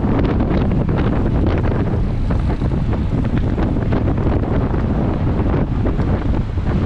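Heavy wind buffeting on the microphone of a bicycle-mounted on-board camera at race speed: a loud, steady low rumble, with many small clicks and rattles throughout.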